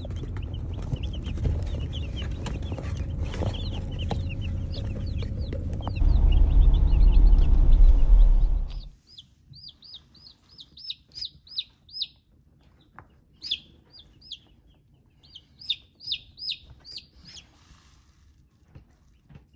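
Easter Egger chicks peeping: many overlapping high chirps over a heavy low rumble that swells about six seconds in and cuts off suddenly near nine seconds. After that, clearer peeps come in short clusters of rapid falling chirps.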